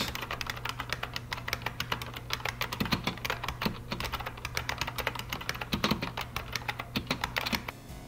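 Fast, continuous typing on an IBM Model M–style buckling-spring keyboard: a dense stream of loud key clicks that stops shortly before the end.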